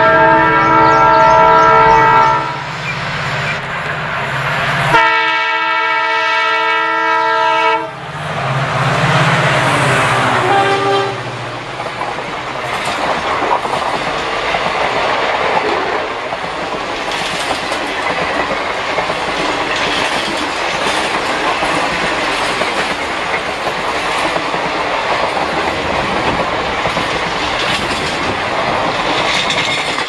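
WDP-4B (EMD GT46PAC) diesel locomotive sounding its air horn in two long blasts, the first ending about two seconds in and the second lasting about three seconds. The locomotive's diesel engine is heard briefly as it passes, and then its passenger coaches roll by with a steady rumble and clickety-clack of wheels over the rail joints.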